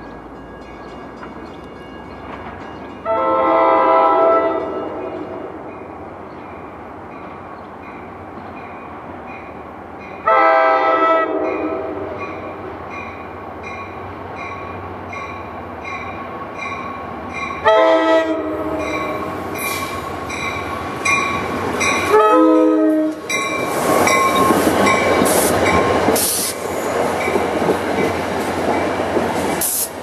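NJ Transit push-pull commuter train's horn on the leading cab car sounding four blasts, each a chord of several tones, the first two longer and the last two shorter. The train's running noise grows from a low rumble into the loud rolling clatter of the cars passing close near the end.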